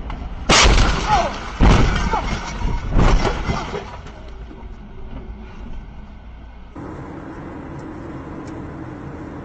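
Car crash heard from a dashcam inside the car: a loud impact about half a second in, then two more heavy crashes with crunching metal and breaking glass over the next few seconds. After a cut, steady road noise of a car driving on a highway.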